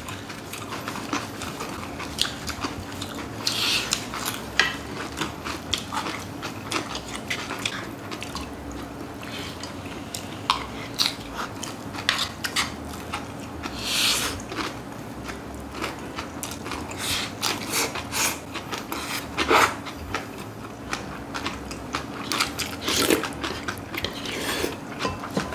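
Close-up eating sounds: chewing crunchy bibimbap made with raw young radish greens, with small clicks of spoons on dishes and a few noisy slurps. A steady low hum runs underneath.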